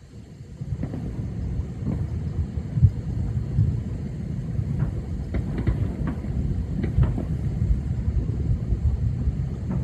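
Thousands of distant fireworks merging into a continuous low rolling rumble, the "rolling thunder", with single bangs and crackles standing out, several close together in the middle. The rumble swells about a second in.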